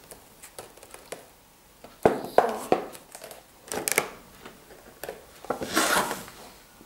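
Toy box packaging being opened: a clear plastic window crinkling and cardboard scraping as it is pulled apart. It comes in short bursts, about two seconds in, around four seconds, and loudest near six seconds.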